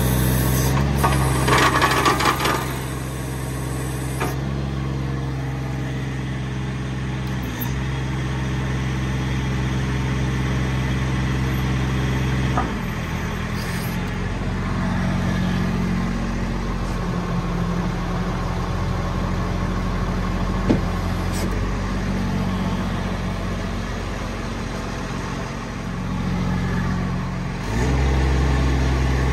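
Diesel engine of the Miller EnPak, a Kubota diesel, running steadily while it drives the hydraulic outriggers. Its note changes abruptly several times as the hydraulic load comes on and off.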